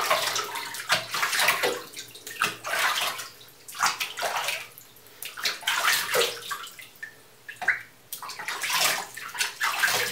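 Bathwater splashing and sloshing in a filled bathtub as a cat is held and washed by hand, in irregular bursts.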